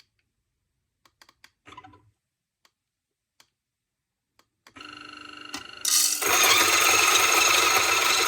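Electric burr coffee grinder: a few light clicks and a short rustle, then the motor starts with a steady whirring hum a little past halfway. About a second later the beans reach the burrs and it grinds loudly and steadily.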